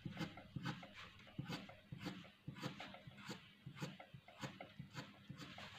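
Graphite pencil scratching on paper in quick short strokes, about two or three a second, as hair is shaded onto a drawing.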